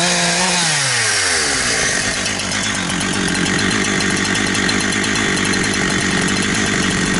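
Holzfforma G372 XP two-stroke chainsaw engine at high revs, dropping off when the throttle is released about half a second in, then settling into a rough, uneven idle.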